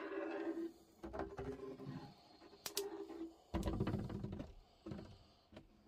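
Caulking gun being squeezed over and over as it pushes construction adhesive out onto a plywood panel: quiet strokes and clicks roughly once a second, dying away near the end.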